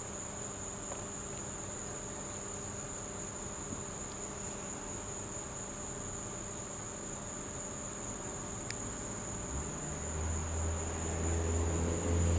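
Crickets chirping in a steady high-pitched chorus. A low steady hum comes up over the last few seconds and becomes the loudest sound.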